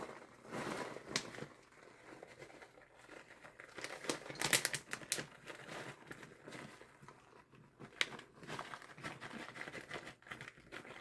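Packaging crinkling and rustling, with a few sharp light clicks, as mozzarella cheese is sprinkled by hand over the lasagna.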